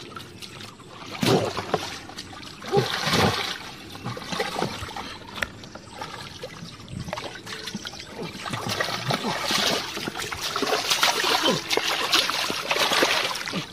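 Water splashing in a shallow muddy ditch as hands churn and grab through it for a catfish. There are separate splashes in the first few seconds, and heavier, continuous splashing from about the middle until just before the end.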